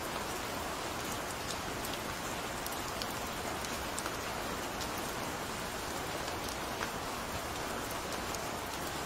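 Steady rain falling: an even hiss with scattered small drop ticks.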